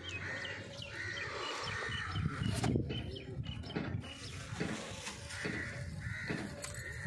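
Crows cawing in a repeated series of short calls, with a quick run of thin, higher chirps in the first few seconds. A single sharp knock near the middle, over a low background rumble.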